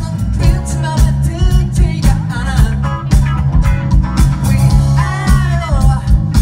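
Live rock band playing loud through a PA: drums keeping a steady beat, a heavy bass line and acoustic guitar, with a man singing.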